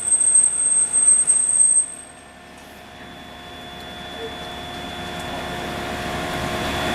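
Double-wire fence mesh welding machine running: a loud steady high-pitched whine cuts off suddenly about two seconds in, leaving a steady machine hum that grows gradually louder.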